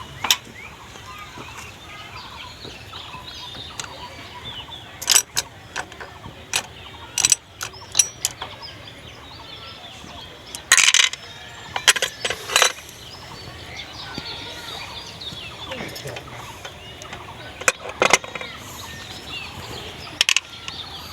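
Scattered sharp metallic clicks and knocks of hand tools and engine parts being handled, with a denser cluster about halfway through.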